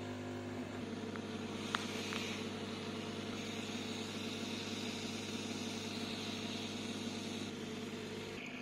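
Hot-air rework gun blowing steadily: a fan hum with an airy hiss that grows stronger about two seconds in and eases near the end. The hot air is melting the solder to lift a surface-mount MP1584EN buck regulator IC off the TV mainboard.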